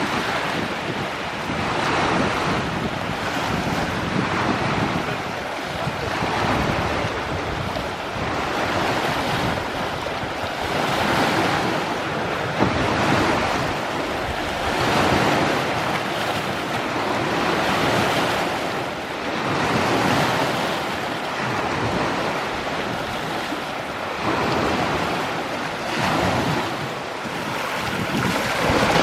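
Waves washing onto a beach, swelling and easing every two to three seconds, with wind buffeting the microphone.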